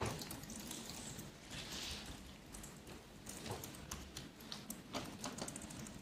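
Irregular clicks of typing on a computer keyboard as terminal commands are entered, with a short hiss about two seconds in.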